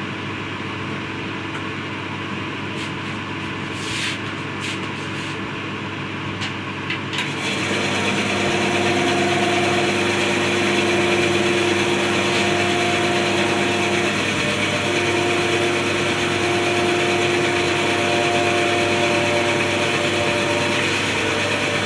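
Record Power SABRE-250 10-inch bandsaw switched on about seven seconds in, after a few clicks, and then running steadily with a hum of several steady tones. This is a test run after setting the blade guides, and it shows a little bit of catch on one of the side guides.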